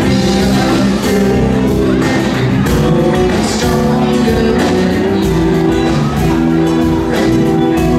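Live rock band playing: a male vocalist singing over electric guitars, bass and a drum kit.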